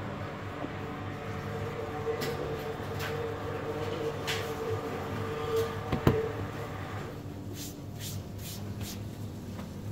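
Hands handling pizza dough on a flour-dusted counter: soft pats and knocks as it is pressed out, with one louder thump about six seconds in. A quick run of sharp clicks comes near the end, over a steady hum of kitchen equipment.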